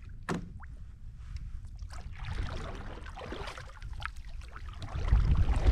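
Water splashing and trickling around a kayak, with a single knock on the hull about a third of a second in. Near the end, gusts of wind buffet the microphone with a heavy rumble.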